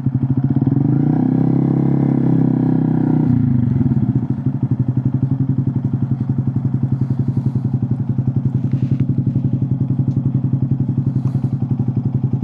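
Honda Monkey 125's single-cylinder four-stroke engine idling through a Scorpion titanium exhaust with the baffle out, a steady, evenly pulsing exhaust note. The revs are held a little higher for a couple of seconds about a second in, then settle back to idle.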